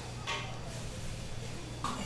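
Kitchen knife striking and scraping a plastic cutting board while chopping imitation crab sticks: two short knocks, one shortly after the start and one near the end, over a steady low hum.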